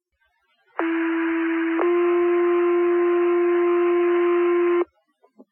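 Two-tone sequential fire-paging alert over a dispatch radio channel: one steady tone for about a second, then a slightly higher tone held for about three seconds, with radio hiss behind them. The tones set off the volunteer firefighters' pagers ahead of a spoken dispatch.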